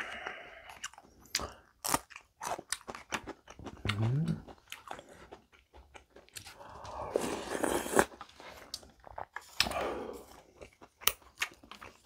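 Close-miked crunching and chewing of a raw green chili pepper, with many crisp bites, then a spoonful of sundae gukbap (rice in soup) eaten with a longer noisy slurp about seven seconds in.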